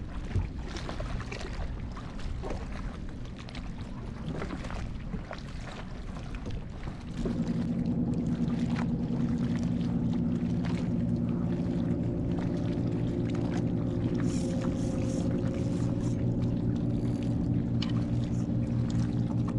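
Faint lapping water, then about seven seconds in a boat engine starts a steady low hum that runs on evenly.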